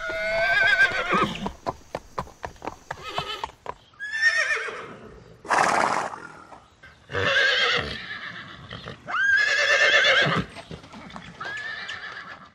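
Horses whinnying again and again, about five high, wavering neighs one after another, with a harsher, noisier call in the middle. A short run of sharp clicks comes between the first two calls.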